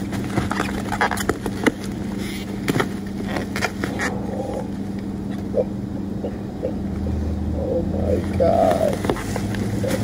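Plastic bubble wrap crinkling and rustling as it is handled and cut open, with many sharp crackles in the first few seconds and softer handling after, over a steady low hum.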